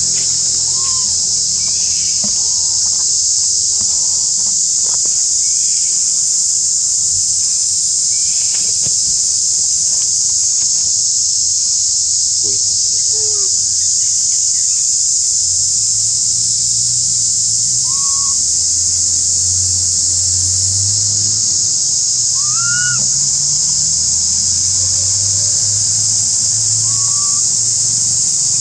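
Steady, loud, high-pitched drone of an insect chorus, with scattered short chirping calls over it, the clearest one about two-thirds of the way through.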